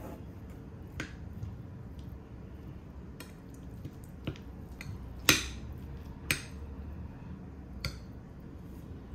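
Metal spoon clinking and scraping against a white ceramic plate while mixing fried rice: about eight separate clinks, the two loudest coming a second apart just past the middle, each with a brief ring.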